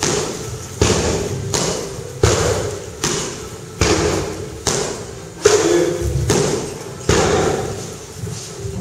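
Kicks and punches landing on hanging heavy bags: a run of about ten dull thuds at slightly uneven spacing, each echoing in a large hall.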